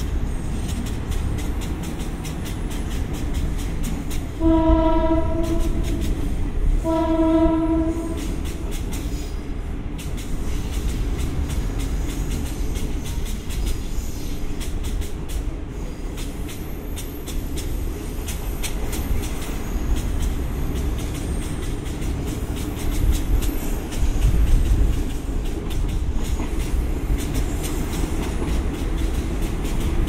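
A KiHa 52 diesel railcar idling at a standstill with a steady low rumble. A train horn sounds two blasts about four and seven seconds in, the first slightly longer.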